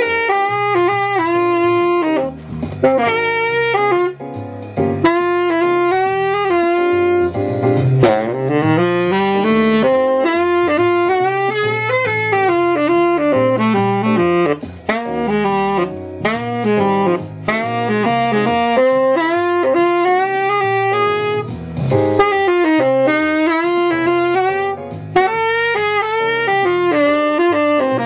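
Tenor saxophone playing a flowing jazz line, with short breaks for breath every few seconds.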